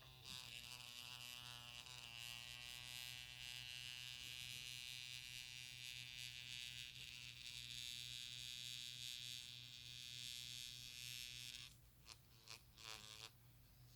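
An IQOS heated-tobacco device's vibration motor buzzing on its own, steadily for most of the time, then cutting off about 12 seconds in and giving a few short buzzes. It is a malfunction caused by the device having been soaked in water.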